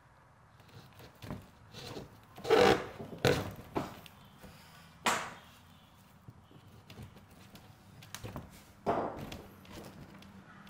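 Hands working stiff birch bark while drawing a spruce-root lashing through the stitch holes: several short scraping, rustling knocks against the bark, the loudest about three seconds in.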